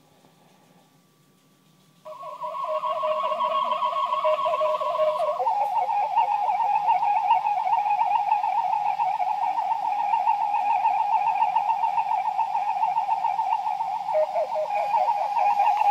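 Warbling electronic sci-fi tone, flying-saucer style, played through two small speakers driven by a 15-watt amplifier board. It starts about two seconds in, after near silence, and drops to a lower warbling pitch a few seconds later.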